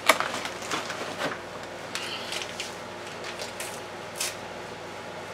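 Crinkling and rustling of a Sazón Goya foil seasoning packet and its cardboard box as the packet is pulled out and opened. A quick run of sharp crackles comes in the first second or so, and a few scattered ones follow.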